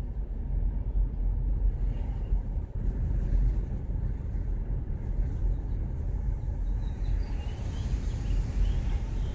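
A car driving: the steady low rumble of road and engine noise.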